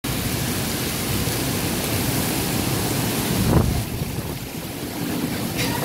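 Heavy rain pouring down in a windy storm, a steady rushing hiss. About three and a half seconds in, a gust rumbles on the microphone, and the rush eases a little after it.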